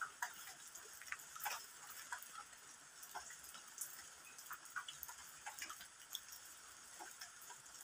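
Faint, irregular ticks and clicks scattered over a quiet background.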